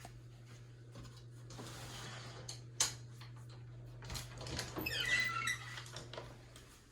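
Closet door being opened: rubbing and rattling, a sharp click, then a squeak as the door moves on its hardware, over a steady low hum.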